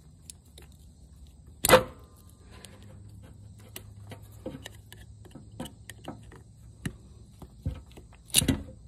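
Pliers and a screwdriver working a toothed metal hose clamp on a pipe: a run of small metallic clicks and taps, with two loud sharp clicks, one about two seconds in and one near the end.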